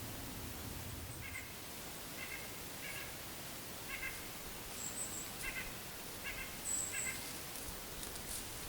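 Woodland birds calling: a series of short nasal calls repeated about once a second, with a couple of thin, very high chirps from a second bird.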